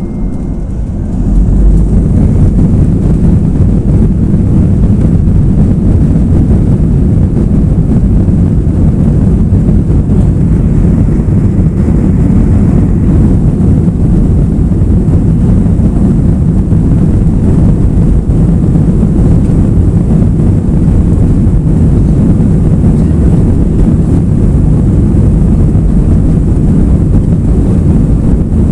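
Airliner engines heard from inside the cabin, rising sharply to take-off power about a second and a half in, then a loud, steady low rumble as the plane takes off.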